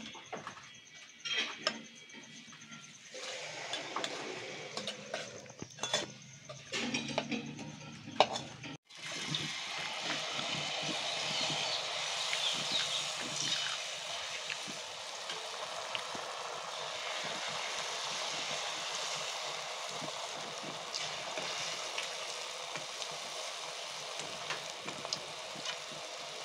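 A metal spatula clinking and scraping against a steel bowl as syrup-soaked jalebis are lifted out. About nine seconds in, after a sudden break, comes a steady sizzle of jalebi batter frying in hot oil in a wok.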